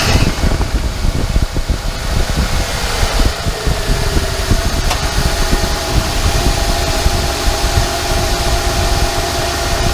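Car engine idling close by, just after starting: its pitch falls a little over the first few seconds as the idle settles, then holds steady.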